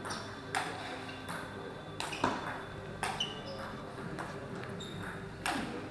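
Table tennis ball being struck back and forth by bats and bouncing on the table in a rally: several sharp clicks at irregular spacing, each followed by a short echo in the large hall.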